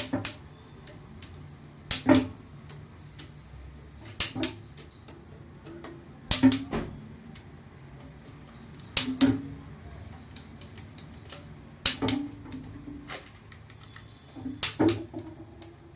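Torque wrench working the connecting-rod cap bolts of a Toyota Etios engine: a sharp metallic click every two to three seconds, with lighter ratchet ticks between.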